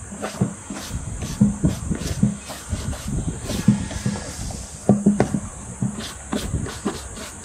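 Small stiff-bristled wooden-handled brush scrubbed over the leather of a Red Wing Moc Toe boot in short, irregular back-and-forth strokes.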